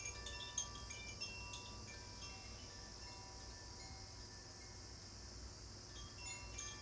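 Makino-style tuned metal chimes ringing softly, many light strikes with high tones that linger, thinning out about halfway through and picking up again near the end.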